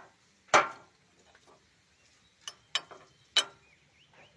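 Sharp knocks of hard engine parts being handled: one loud knock about half a second in, then three more between two and a half and three and a half seconds in.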